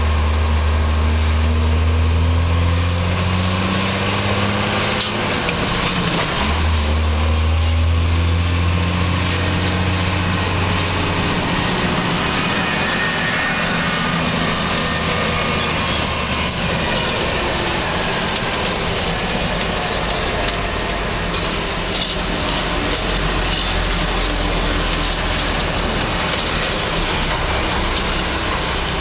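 Truck engine heard from inside the cab while driving, pulling hard with a strong low note that drops away about three seconds in and returns a few seconds later as gears are changed, then settles to a steadier rumble. Several sharp clicks and rattles near the end.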